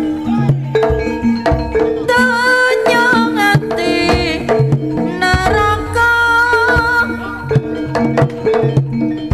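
Javanese jaranan gamelan music played live: hand-drum (kendang) strokes driving the rhythm under repeated metallic pitched notes, with a melody line that bends and wavers in pitch above them.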